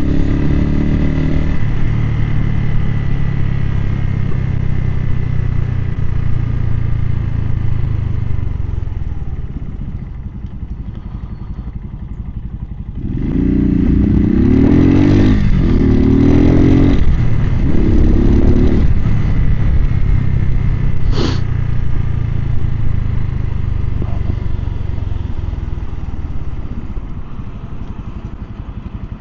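Suzuki TU250X's single-cylinder engine, picked up by a mic inside the rider's helmet, running at a steady cruise. About ten seconds in the revs drop. A few seconds later it pulls up through three gears, revs rising with a short break at each shift, then settles back to a steady cruise.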